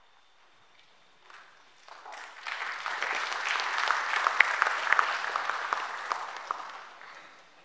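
Audience applauding: a few scattered claps, swelling into full applause about two and a half seconds in, then dying away near the end.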